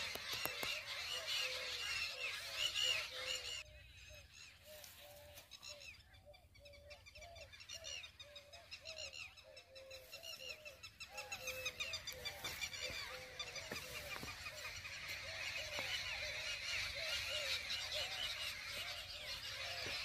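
Many birds calling together in a dense, high twittering chorus, with a lower call repeated two or three times a second. The chorus drops away suddenly a few seconds in and builds back up from about halfway.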